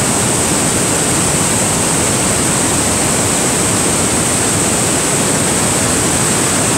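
Loud, steady rushing of water from Niagara Falls and the fast river below it, an even noise without breaks.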